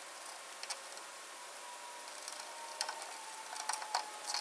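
Faint, scattered metal clicks and taps of a Kaiser Willys hub puller being fitted and snugged onto the rear axle hub's studs.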